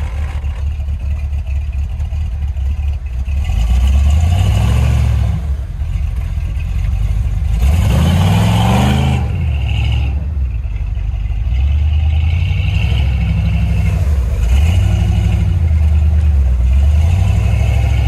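Square-body Chevrolet K5 Blazer's engine revving in repeated surges as it backs up through snow, the pitch climbing and falling about five times. The biggest rev, about eight seconds in, comes with a rush of noise.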